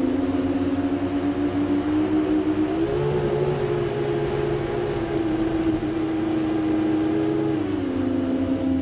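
FPV drone's iFlight Xing 2208 1700 kV brushless motors whining steadily in flight; the pitch steps up about three seconds in and drops back down near the end as the throttle changes.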